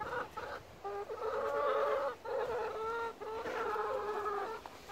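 Chickens calling: a run of drawn-out, steady-pitched calls, several of them a second or longer.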